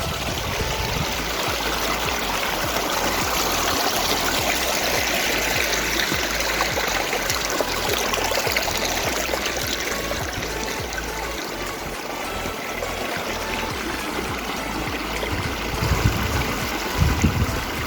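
Mountain stream water flowing steadily, with a few low wind buffets on the microphone near the end.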